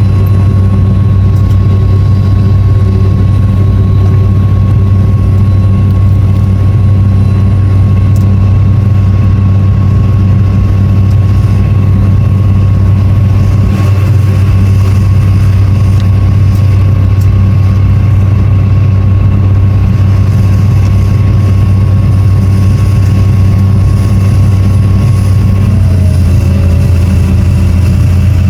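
Excavator's diesel engine running loud and steady at constant speed, with a thin steady whine above the engine note; the note shifts slightly near the end.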